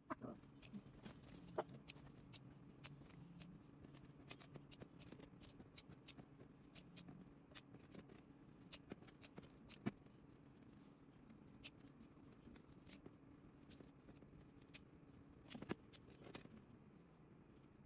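Faint, irregular light clicks of small plastic letter beads being picked up and dropped into the compartments of a clear plastic bead organizer, with a small cluster of clicks near the end.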